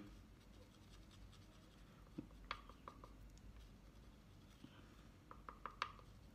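Faint scratching and small ticks of a thin plastic applicator stick dabbing glue against a clear plastic box. There are a few light clicks a couple of seconds in and a quick run of about five near the end.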